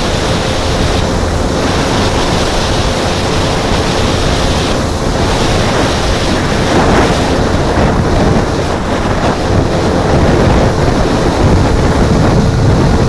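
Heavy wind buffeting on the microphone of a motorcycle-mounted camera at road speed, over the steady drone of the motorcycle engine.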